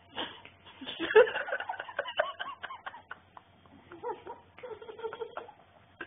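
Wordless voice sounds in short, uneven bursts, with laughter among them, loudest about a second in.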